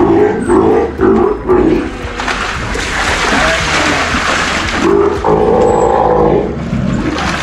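Steller sea lions calling: a run of short calls, then a rush of water splashing for about three seconds, then one longer call.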